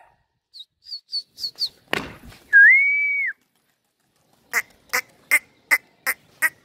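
A person whistles one loud, clear note that rises and then holds for under a second, calling to flying pigeons. Before it come a few short high chirps and a single sharp knock; near the end, a quick run of sharp calls about three a second.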